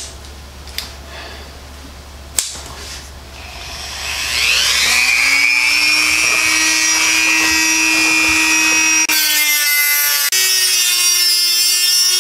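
A couple of sharp clicks, then a handheld rotary tool switches on about four seconds in, its whine rising as it spins up and then running steadily. From about nine seconds in the cutoff wheel bites into a metal sling fitting, adding a harsh hiss of grinding metal over the motor whine.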